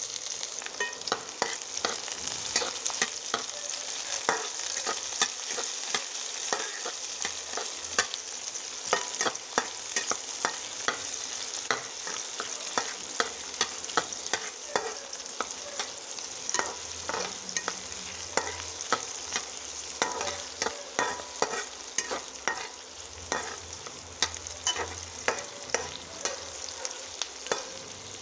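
Chopped onions sizzling in hot oil in a kadhai, with many sharp scrapes and taps as a spatula stirs them against the pan.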